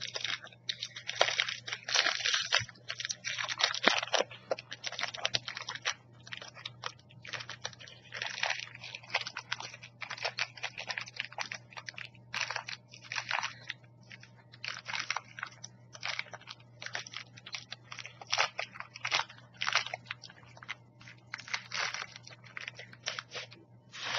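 Plastic snack wrapper crinkling and crackling as it is handled and torn open, in irregular bursts that are densest in the first few seconds, over a low steady hum.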